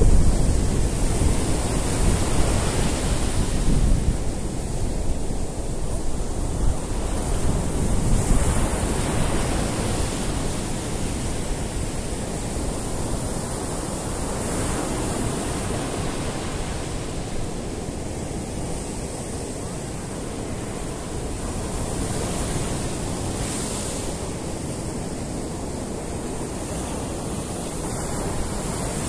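Rough surf breaking and washing up a sandy beach: a continuous rush of water that swells and eases every few seconds, heaviest near the start.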